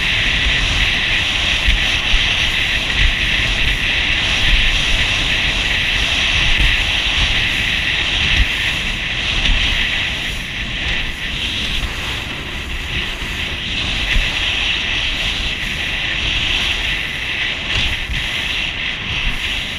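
Small motorboat running fast over open water: steady engine drone mixed with rushing water, spray and wind buffeting the microphone.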